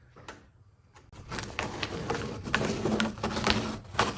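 Scraping and crackling of body-filler work on a trunk filler panel, with many small clicks, starting about a second in.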